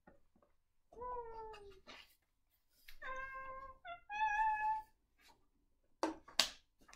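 Domestic cat meowing three times: a first call falling in pitch about a second in, then two steadier calls a couple of seconds later. A short rustle follows near the end.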